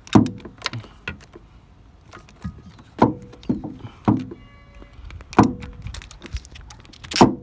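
A ratchet wrench tightening a new engine oil pressure sensor: a series of sharp metallic clicks at uneven intervals, several followed by a brief ringing tone.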